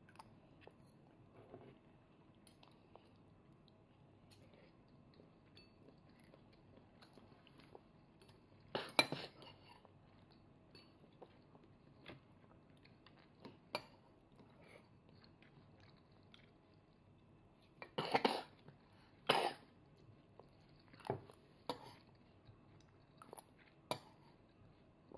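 A toddler eating: a small metal fork and spoon clink and scrape against the dishes every few seconds, loudest about nine seconds in and twice more around eighteen to nineteen seconds, with soft chewing in between.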